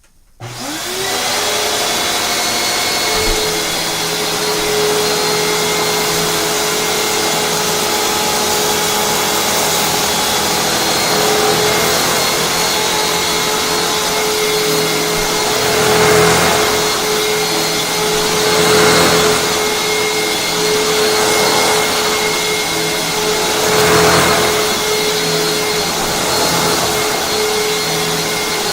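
Hoover WindTunnel upright vacuum cleaner switched on, its motor spinning up to a steady whine within a second, then vacuuming rice off carpet. The sound swells and eases a few times.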